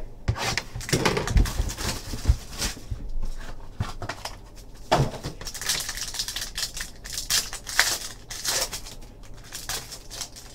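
Hands opening a trading-card box and its foil pack: a run of irregular clicks and taps, with crinkling of the foil wrapper in the second half.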